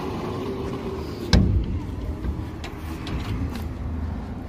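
Steel swing-gate leaf being pushed shut by hand, with one loud metallic clank about a second in as it closes, then a few lighter knocks.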